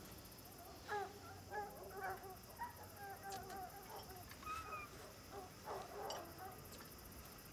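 Faint animal calls: short pitched cries repeated irregularly, several a second at times.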